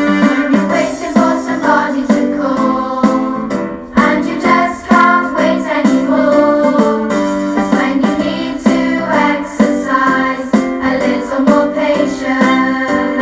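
Background music: a bouncy keyboard or piano tune with a singing voice over a steady beat.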